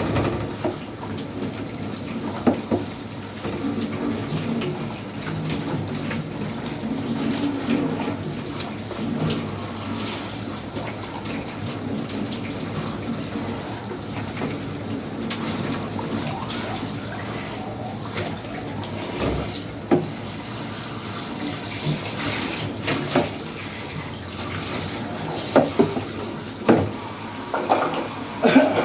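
Water running steadily, as from a tap, with scattered clicks and knocks that come more often near the end.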